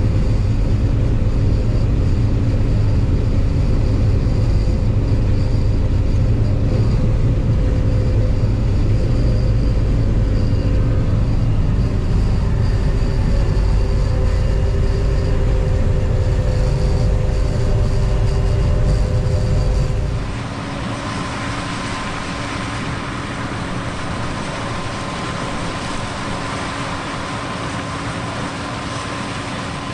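John Deere 9610 Maximizer combine running while harvesting corn, heard from inside the cab as a steady, deep machine drone with a few held tones from the engine and threshing drives. About two-thirds of the way through the sound changes abruptly: the deep rumble drops away and a lighter, hissier machine noise with a steady whine takes over.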